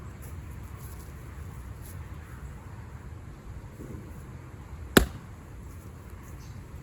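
A single axe blow into a pecan wood log from a Fiskars splitting axe: one sharp crack about five seconds in, over a steady low rumble.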